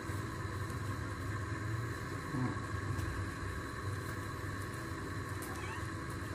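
Steady low mechanical rumble, even throughout.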